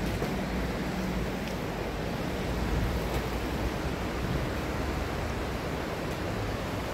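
Steady rushing of a shallow river running over a stony bed, with a low rumble underneath.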